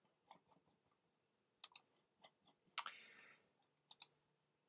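Computer mouse clicking as workspaces are deleted: a few sharp single clicks and two quick double clicks. One click about three seconds in is followed by a brief soft rustle.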